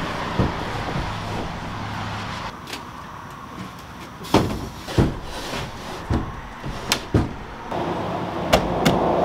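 Hollow knocks and clunks of a diamond-plate metal rooftop tent box being lifted and shifted into place on a truck camper's roof. There are several sharp knocks from about four seconds in, over a steady background hiss.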